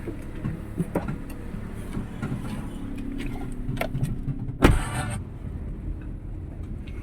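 People getting into a car: small knocks and handling noises over a low steady hum, and a car door slamming shut about four and a half seconds in.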